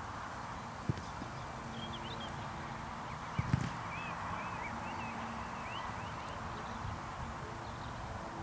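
Open-air ambience: a steady background hiss with small birds chirping in short rising and falling notes, and a few dull thumps, the loudest a close pair about three and a half seconds in.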